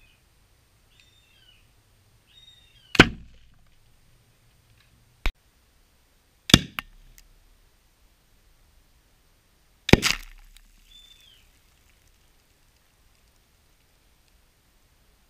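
Four sharp bangs of one-litre plastic soda bottles loaded with dry ice bursting as they are shot: one about three seconds in, two more around five and six and a half seconds, and a last one about ten seconds in.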